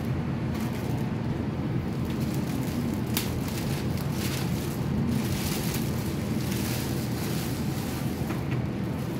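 Thin plastic wrapping rustling and crinkling as it is pulled and worked off a printer, clearest about three and five seconds in, over a steady low rumble.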